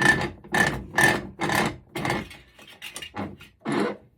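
Hammer striking a copper-and-aluminum heat sink, about eight blows roughly two a second with a short metallic ring, to knock the aluminum away from the copper.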